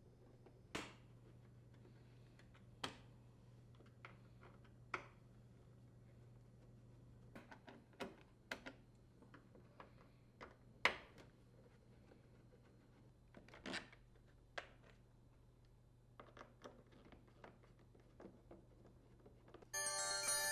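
Scattered light clicks and taps from a T15 Torx bit backing out the screws that hold the dishwasher's inner and outer door panels together, with one louder knock about eleven seconds in. Background music comes in just before the end.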